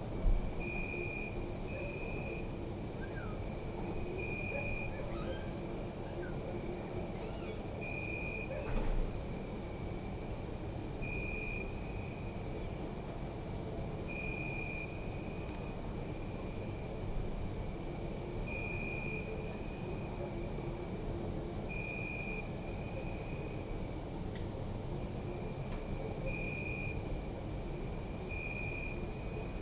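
Crickets chirping in high-pitched pulsed trains, each lasting a second or two with brief gaps, over a steadier, lower insect trill. A low background rumble runs beneath, with a short low thump just after the start and another about nine seconds in.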